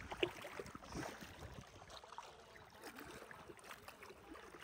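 Faint, scattered splashing and lapping of shallow river water.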